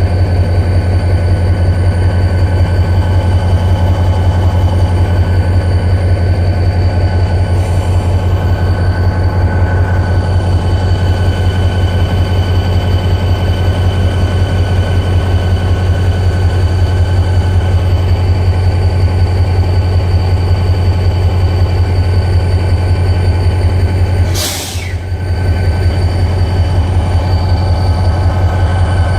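Diesel-electric locomotive engine running steadily at rest, a loud, even low pulsing hum with steady tones above it. About 24 seconds in the hum dips briefly under a short hiss, then comes back.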